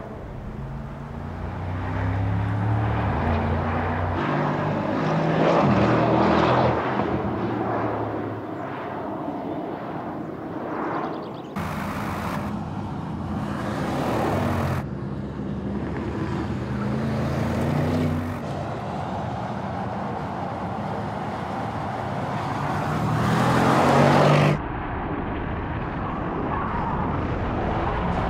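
Mercedes-AMG GT 63 S E Performance's twin-turbo V8 accelerating hard, its exhaust note climbing in pitch through several upshifts. The sound jumps abruptly between separate runs, and is loudest just before the last jump near the end.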